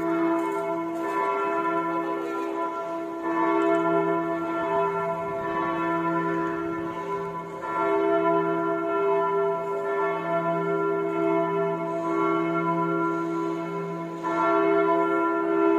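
The Budvar church bell, cast in 1995 by the Rudolf Perner bell foundry of Passau, swinging and ringing with repeated strikes. Its low hum swells and fades about once a second under a steady ringing.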